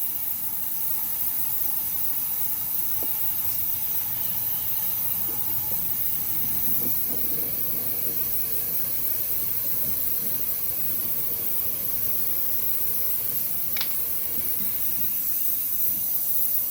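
Loud, steady hiss of gas rushing during an attempt to seat a tubeless tire's bead on a minibike rim, with the bead not yet sealing. A few faint ticks sound over it.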